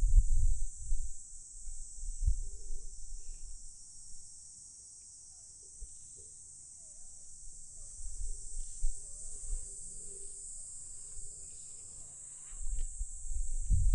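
Insects trilling steadily in a high, even drone, with low irregular rumbles on the microphone at the start and again near the end.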